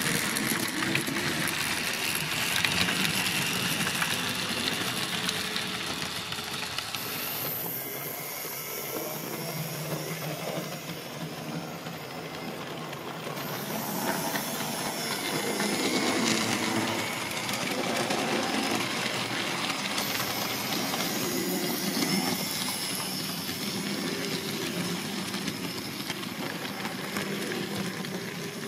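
HO-scale model steam trains running on a layout: a steady hissing steam-locomotive sound over the running noise of the trains on the track.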